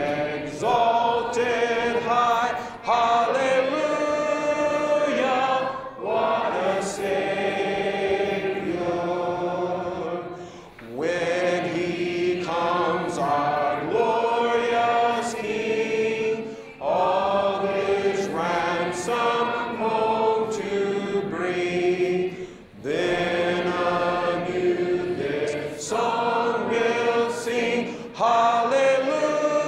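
A church congregation singing a hymn in parts, unaccompanied: many voices holding long notes in phrases, with short breaks between lines.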